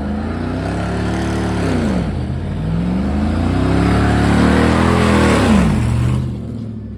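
Truck engine revved hard twice, its pitch climbing and then dropping each time, under a loud rushing hiss; the sound falls away about six seconds in.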